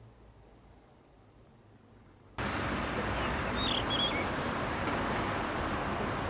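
Faint room tone, then an abrupt switch to steady outdoor noise, with a small bird chirping a few times about a second after the switch.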